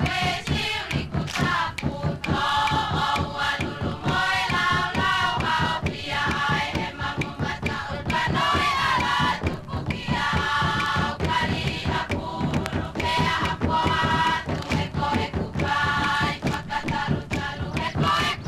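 A group of voices chanting in unison over fast, steady drumming.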